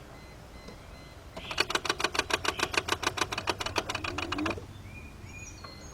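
Rapid, even clicking from the starter circuit of a 2004 Mercedes-Benz C320 as the key is turned, about nine clicks a second for roughly three seconds, starting over a second in; the engine does not crank.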